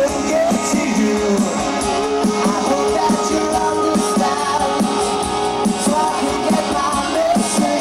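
Live rock band playing electric guitars and drum kit, with a sung lead vocal, recorded from the crowd on a camcorder microphone that leaves the bass thin.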